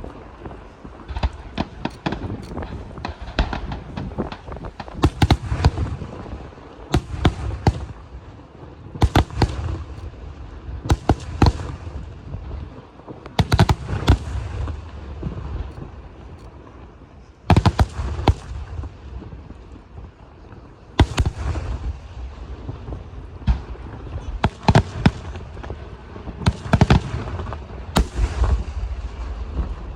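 Aerial fireworks shells bursting in a rapid series of sharp bangs, bunched in clusters every second or two, with crackling between them over a low rumble.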